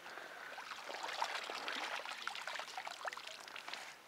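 A hand stirring and splashing in shallow water, with trickling and dripping, while small fish are released; it eases off just before the end.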